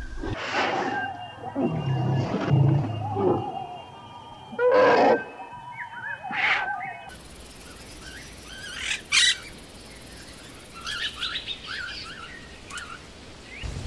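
Four loud animal calls, each about a second long, then, after a sudden change about halfway, a bird's short high chirps in quick runs.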